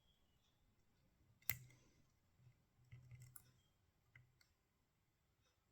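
Faint, sparse metallic clicks of a pick working the pins of a tubular hex core lock: one sharper click about a second and a half in, a few more around three seconds, and a faint one near four seconds. These small clicks are pins being pushed and setting as the lock is picked.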